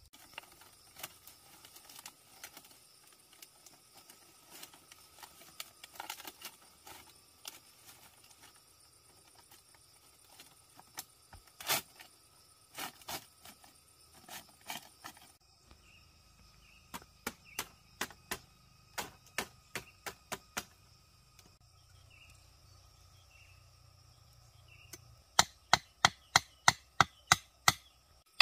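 Split bamboo slats and stakes being handled and knocked together in fence-building: scattered light clicks and clatters, then a run of even knocks about three a second. Near the end comes a fast series of loud sharp blows, about four a second, as of bamboo being struck or chopped.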